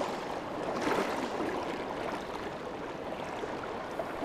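Fast-flowing river water rushing steadily past over a shallow rocky bed, with a slight swell about a second in.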